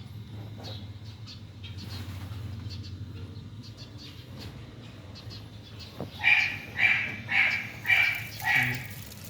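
An animal calling five times in quick succession, about two calls a second, loud over a low steady hum. Before the calls there are only a few faint clicks.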